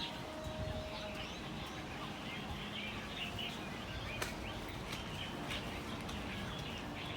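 Many small birds chirping and twittering without pause over a steady background hiss, with a single sharp click about four seconds in.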